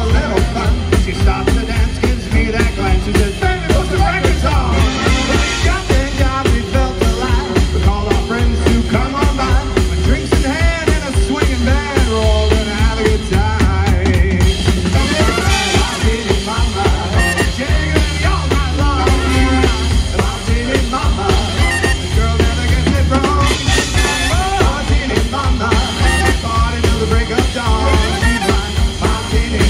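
Live swing band playing a number, with a steady drum kit beat under the melody.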